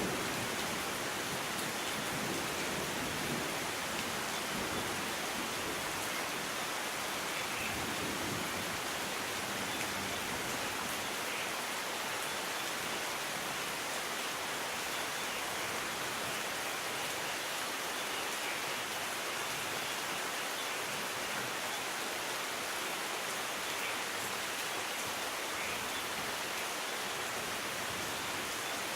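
Steady rain, an even hiss with no single drops standing out. A low rumble in the first few seconds dies away.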